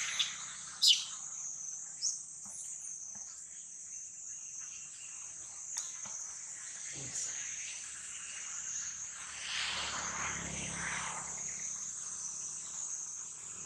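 Steady high-pitched insect chorus of crickets or cicadas, with a few short sharp chirps about one and two seconds in.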